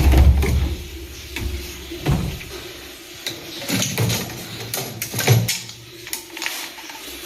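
Scattered clicks, knocks and a few dull thuds from handling a top-loading washing machine while fitting a new suspension rod to its tub.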